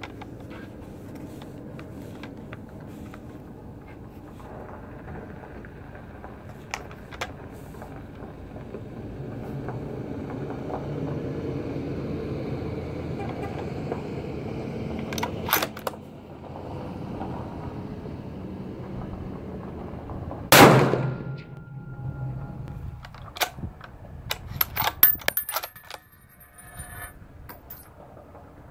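A single rifle shot from a Tikka T3 in .308 fitted with a muzzle brake, sharp and loud with a short ringing tail, about two-thirds of the way in. A few seconds later comes a quick cluster of metallic clicks and clinks, over a low steady background noise before the shot.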